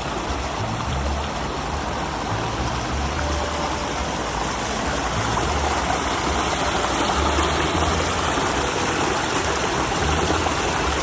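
Shallow mountain stream running with a steady rushing noise.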